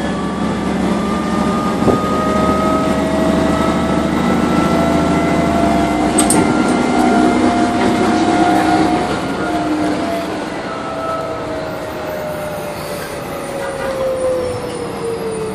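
Transit bus heard from inside the passenger cabin, its Voith automatic transmission whining over engine and road rumble. The whine rises in pitch as the bus gathers speed, then falls slowly as it slows again, and the low engine rumble drops away about six seconds in.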